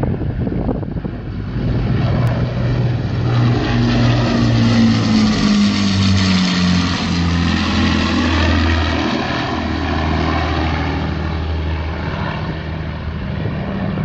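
Avro Lancaster bomber's four Rolls-Royce Merlin piston engines and propellers in a low flypast. The sound grows louder as the bomber approaches and is loudest as it passes overhead about halfway through. The engine note then drops in pitch as it flies away.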